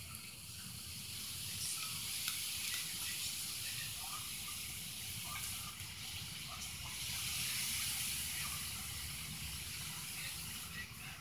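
Steady outdoor background noise: an even hiss with a low rumble underneath, and a few faint scattered ticks.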